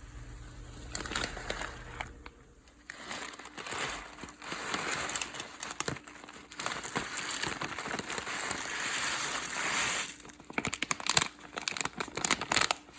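Crinkly packaging being handled and rustled, with irregular crackles and small clicks, dropping away briefly a couple of times.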